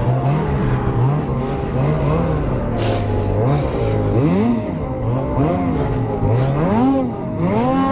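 Ski-Doo 850 two-stroke snowmobile engine running, then revving up and down over and over, its pitch rising and falling in quick swells from about halfway in.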